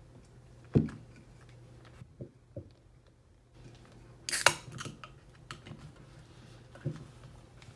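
Aluminium can of carbonated Suntory Premium Highball Hakushu being handled: a knock as it is picked up, a few small taps, then a little over four seconds in the pull tab cracks open with a short fizzing hiss, the loudest sound. Another knock comes near the end.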